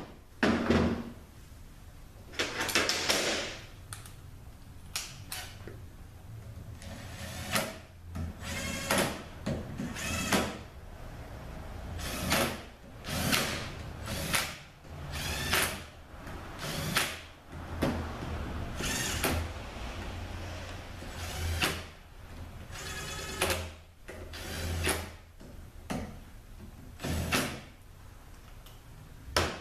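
Bolts on a 45RFE transmission valve body being run down one after another with a driver: a short fast ratcheting whirr for each bolt, repeating every one to two seconds.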